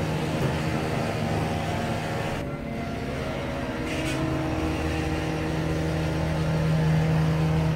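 A steady low mechanical hum with a few level tones, like a machine running continuously. It cuts off abruptly at the end.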